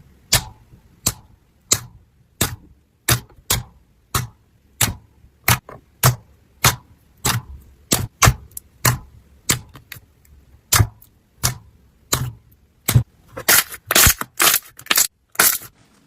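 Slime being worked by hand, giving sharp clicking pops about one and a half times a second, with a quicker, louder run of clicks near the end.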